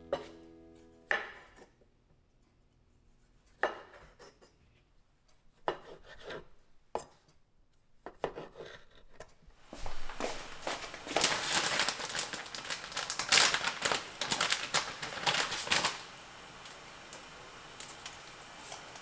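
Chef's knife slicing cherry tomatoes on a wooden cutting board: separate sharp cuts and taps, a few seconds apart, over the first nine seconds. Then about six seconds of louder, dense crackling and rustling, giving way to a steady low hiss.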